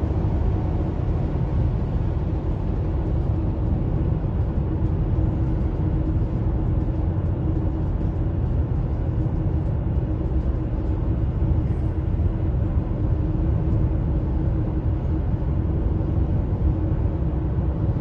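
Road noise inside a car's cabin at highway speed: a steady low rumble of tyres on pavement and wind, with a faint steady hum.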